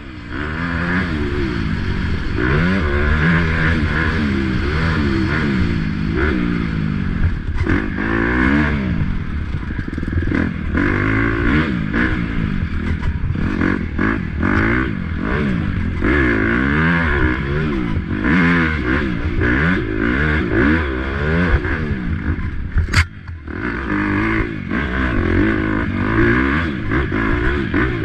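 Dirt bike engine revving up and down over and over with throttle and gear changes during an off-road race, with some clattering from the bike. It dips briefly a few seconds before the end, then picks up again.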